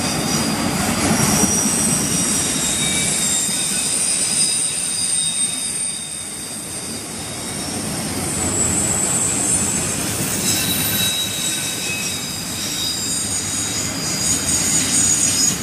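Freight cars of a manifest train, autoracks and then covered hoppers, rolling past on steel rails: a steady rumble of wheels and trucks, with several high-pitched wheel squeals that come and go.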